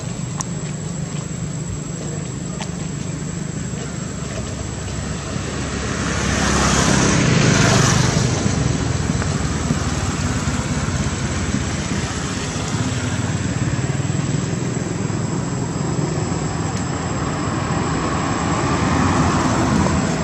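Motor traffic: a steady engine hum, with a vehicle passing close and loudest about seven seconds in.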